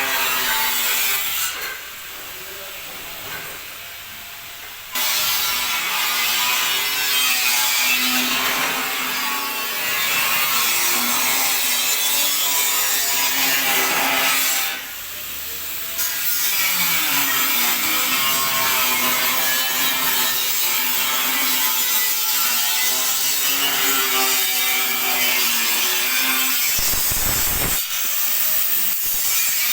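Continuous loud rasping, abrasive noise of shop tool work. It eases off twice: from about two to five seconds in, and again briefly around fifteen seconds.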